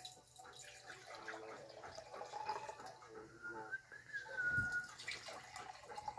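Orange-juice iodine clock mixture poured back and forth between two glass lab beakers, splashing and trickling into the glass. A brief high tone rises and falls a little past the middle.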